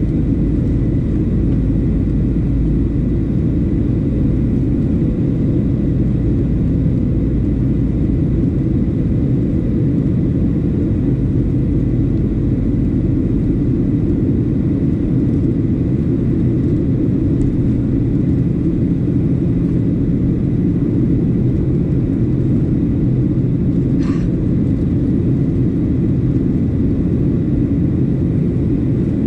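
Boeing 737-700 airliner cabin noise in flight, with its CFM56-7B engines and the airflow making a steady low roar and a faint steady whine. A single short click sounds late on.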